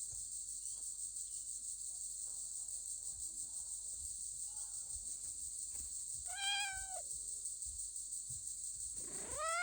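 Domestic cat meowing twice: a short meow about two-thirds of the way through, and a longer one near the end whose pitch rises and then falls.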